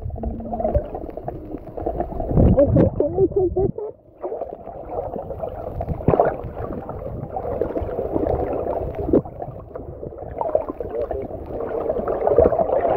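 Muffled water noise heard underwater, with bursts of gurgling from air bubbles, loudest a few seconds in and again near the end, and a brief dip about four seconds in.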